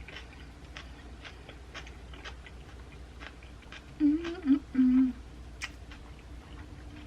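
Close-miked chewing of a Subway ham-and-cheese sub, with small wet mouth clicks. About four seconds in, a short hummed "mmm" of enjoyment, wavering in pitch and broken into three parts.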